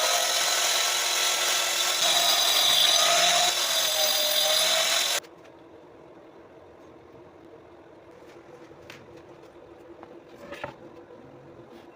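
Angle grinder fitted with a wood-cutting blade, running and cutting into wood, its motor pitch dipping and recovering under load. It stops abruptly about five seconds in, leaving a faint steady hum and a few light knocks.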